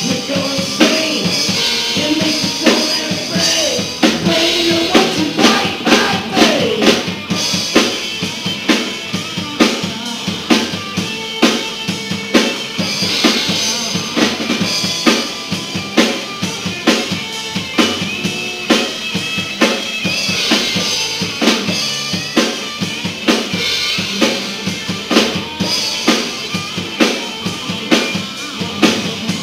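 Live rock band playing: a drum kit keeps a steady beat on snare and bass drum under electric guitar, with a singer's voice over the first several seconds.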